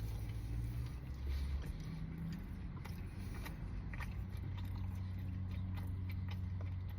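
A person chewing a mouthful of chicken burger, with small wet mouth clicks scattered through, over a steady low hum.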